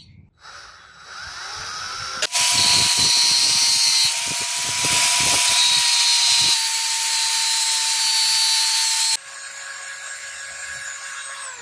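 A cordless drill spins up with a rising whine, then a small metal part turning in its chuck is ground against an angle grinder's flap disc: a loud steady grinding hiss over the motors' whine. About nine seconds in the grinding stops, leaving the drill's lighter whine as a hand file rubs the spinning part.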